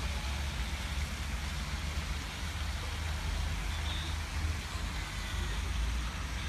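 Wind buffeting the microphone with an uneven low rumble, over a steady hiss of outdoor background noise.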